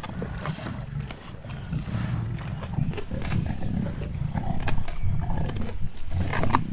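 A pride of lions growling low and snarling as they feed together on a Cape buffalo kill, the growls getting louder toward the end: jostling and squabbling over the carcass.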